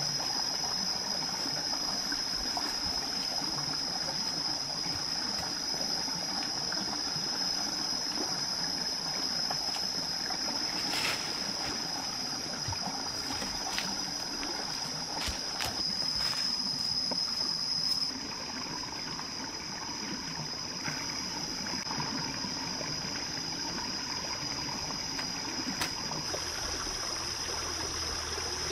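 Stream water running and trickling over rocks, with a steady high-pitched insect drone above it. A few light snaps and clicks come about halfway through.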